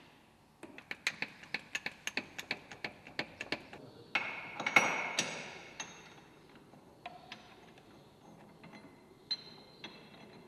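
Steel shackles and rigging clinking against the tractor's rear lower-link hook as they are fitted. A run of quick metal clicks, then a louder clank that rings on about four seconds in, then scattered fainter clinks.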